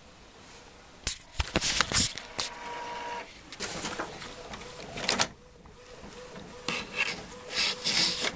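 Multifunction inkjet printer printing: its mechanism runs in bursts with clicks and a short whine, mixed with loud rubbing and scraping as a cat brushes against the printer and the camera. It starts about a second in, eases off for a moment past the middle, and picks up again near the end.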